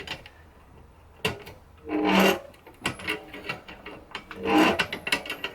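Stiff threads on an old motorcycle shock absorber being unscrewed by force: two creaking squeals, about two seconds in and again near the end, with scrapes and clicks between.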